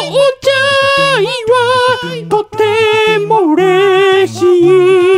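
Vocal music: a voice sings long, wavering notes over a low bass line that moves in short steps. The last couple of seconds hold one long note.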